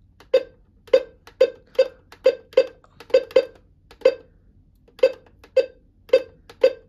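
Alert Works NOAA weather radio beeping briefly at each button press, about a dozen short beeps at irregular spacing, as its alert settings are stepped through one by one.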